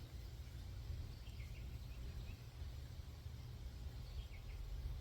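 Quiet outdoor background: a low steady rumble with a couple of faint bird chirps.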